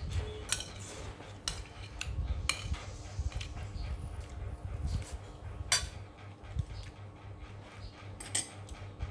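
Metal spoon clinking and scraping against a ceramic plate of rice: a string of sharp clinks, the loudest about halfway through, over a low steady rumble.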